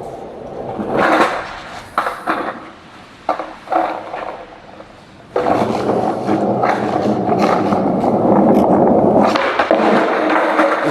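Skateboard wheels rolling on wet pavement, with sharp clacks of the board in the first few seconds, then a long steady roll from about halfway.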